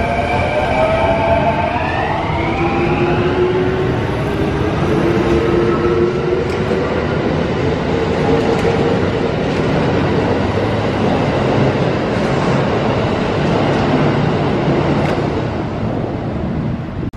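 Kintetsu electric trains pulling out of the station, close by. First comes a rising whine of traction motors as one train accelerates. Then a second train's motors and car rumble are heard as it pulls away, with the noise easing off near the end.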